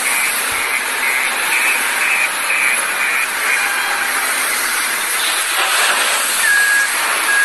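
LiuGong wheel loader working coal: a steady, noisy hiss of the machine and of coal spilling from its bucket into a rail wagon. A run of short high beeps, about two a second, sounds through the first three seconds, and a single beep comes near the end.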